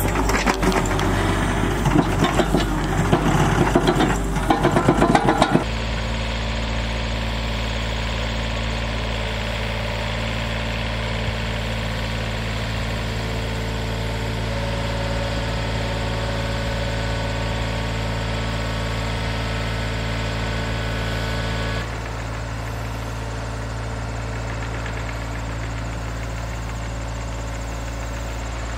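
Compact excavator's diesel engine running steadily, with a burst of clattering and scraping over it for the first five seconds or so.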